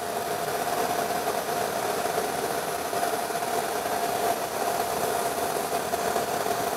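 ATC CNC router running with a steady mechanical hum and a thin, steady whine over it.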